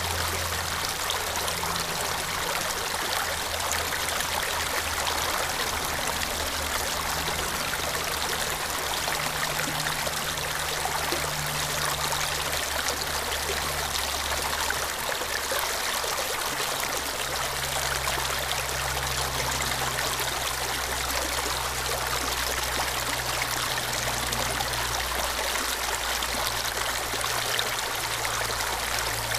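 Shallow stream water running and trickling over rocks in a steady, unbroken rush.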